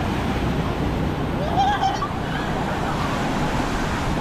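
Surf breaking and washing up the sand in a steady rush. A short wavering call, a voice or a bird, rises over it about a second and a half in.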